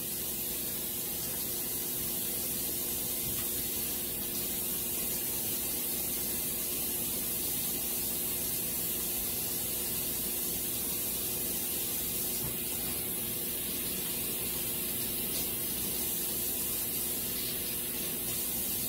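Steady hiss of water boiling hard beneath a stacked-pot steamer of king crab legs, with a faint steady hum under it. The hiss cuts off suddenly at the very end.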